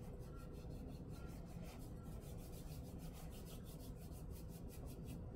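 Faint, quick rasping of small hands rubbing crumbly, dry bath bomb mixture between the palms over a bowl, about five strokes a second.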